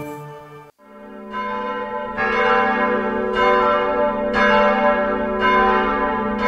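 The last note of a song fades out. After a moment's silence, church bells ring, with a new stroke about every second over a steady low hum from the bells.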